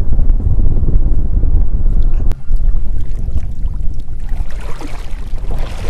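Wind buffeting an action camera's microphone: a loud, uneven low rumble, with one sharp click a little past two seconds in.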